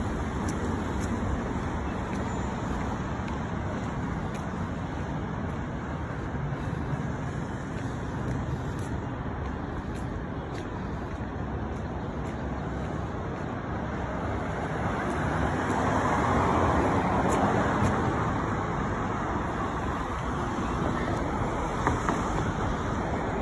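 City street traffic: a steady wash of passing cars, swelling louder for a couple of seconds as a vehicle goes by about two-thirds of the way through.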